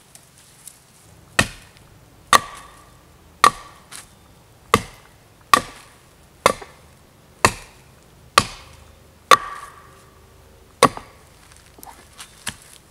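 Ten sharp chops of a hand blade into dead wood, about one a second, each with a short ring. A few lighter taps follow near the end.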